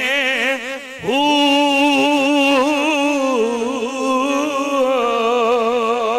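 A man singing a Punjabi devotional verse in long drawn-out notes with a wide vibrato. About a second in he breaks off briefly, then starts a new held note a little higher.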